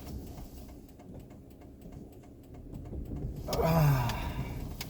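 Car driving slowly on a snow-covered road, heard from inside the cabin as a low steady rumble with faint clicks. About three and a half seconds in, a man's voice gives a short sound that falls in pitch.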